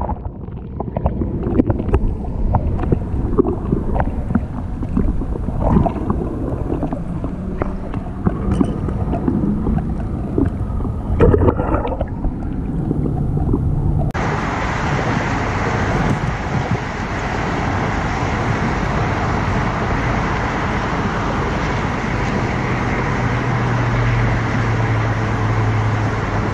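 Muffled underwater gurgling of lake water with scattered knocks. About halfway through it switches abruptly to a steady hiss of wind and water, with a low steady hum near the end.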